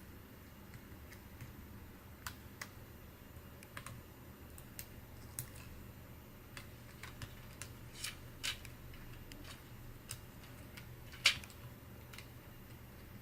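Irregular small clicks and taps of laptop parts and small tools being handled while an HP ENVY 15 laptop is taken apart, with one sharper click about 11 seconds in.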